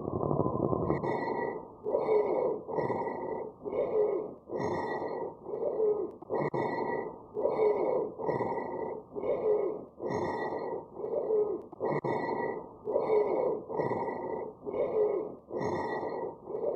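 Recorded abnormal lung sounds: quick, regular breaths about one a second. Each breath carries a musical, whistling tone, the kind of continuous adventitious sound heard as a wheeze.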